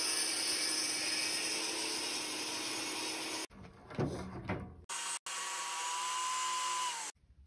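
Jobsite table saw ripping a thick wooden board, a loud steady cutting noise for about three and a half seconds. After a cut come a few knocks and scrapes of wood being handled, then a steady whine that drops in pitch just before it stops.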